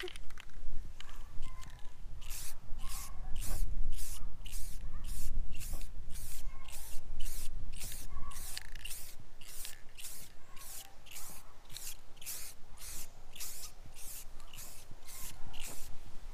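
Clear coat being sprayed onto a car hood in short, quick hissing bursts, about two a second, over a low rumble.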